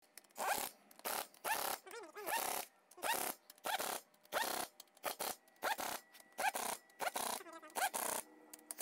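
Pneumatic air gun set at medium speed, driving the bolts of an aluminium sump spacer on an engine block in short bursts, about two a second, each with a rising whine as the tool spins up.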